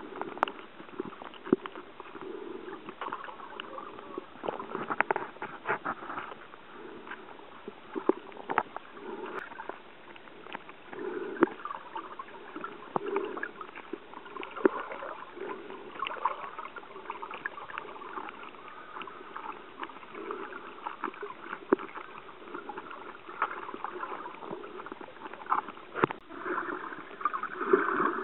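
Muffled underwater water noise picked up by a camera held below the surface, sloshing and gurgling unevenly, with many scattered sharp clicks and crackles.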